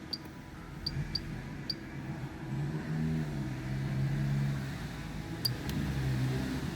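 Toyota Hilux's 3.0-litre four-cylinder diesel engine running, its low note swelling and rising a little about two and a half seconds in and again near the end, with a few sharp ticks over it. The engine is suspected of a misfire from a faulty injector.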